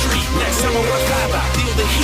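Background hip-hop music with a steady beat, bass and a vocal line.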